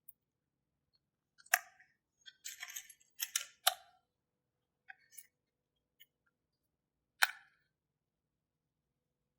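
Sharp clicks and short scraping of small hard parts from a power bank being handled during its disassembly: a few separate clicks, a scratchy cluster in the middle, and one last click later on.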